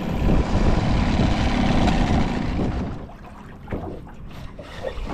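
Wind buffeting the microphone over choppy lake water, easing about three seconds in. After that, a few small slaps of water against the side of an aluminum boat are heard.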